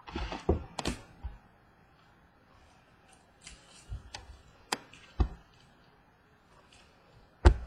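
Baseball trading cards being handled and sorted on a table, a scatter of light clicks, taps and short rustles. The loudest is a sharp knock near the end.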